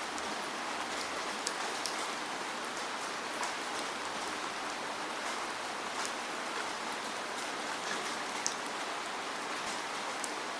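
Steady falling rain, an even hiss with scattered sharp drop ticks throughout.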